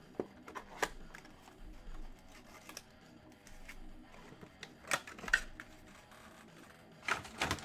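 Cardboard trading-card boxes being handled: scattered clicks and taps as a box is opened and its sealed pack pulled out and set down on the table. The sharpest taps come about five seconds in and near the end.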